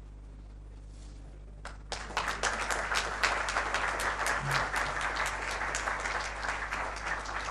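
Audience applauding, starting suddenly about two seconds in as the plaque is handed over and carrying on steadily.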